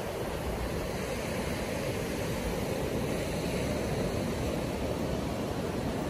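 Ocean surf breaking and washing up a sandy beach: a steady, even rush of low waves with a low rumble underneath.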